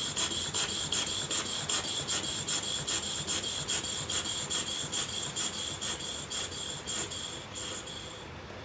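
Stuart Models James Coombes steam table engine running on low boiler pressure, chuffing evenly about five times a second with a faint high whistle, until it stops shortly before the end.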